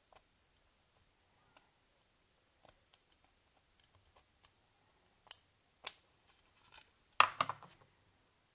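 Small plastic clicks and scrapes as a plastic pry tool works at the housing of a Siemens A40 mobile phone: faint ticks at first, two sharp clicks about five and six seconds in, then a louder cluster of snapping clicks near the end as a small three-pin contact block comes out.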